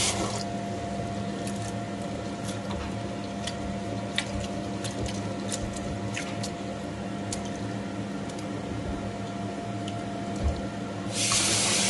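A kitchen tap shuts off, then rinse water is tipped out of a steel bowl of rice into a stainless-steel sink, with scattered small clicks and wet splashes. There is a dull knock about ten seconds in, and near the end the tap runs again, filling the bowl.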